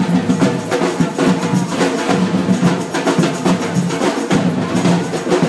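Drum-heavy music: a fast, dense rattle of percussion strokes over sustained lower tones.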